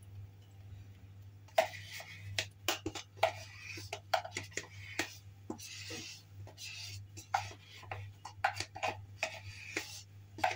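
A spoon scraping and tapping inside a sour cream container to get the last of it out: a run of irregular short clicks and scrapes over a low steady hum.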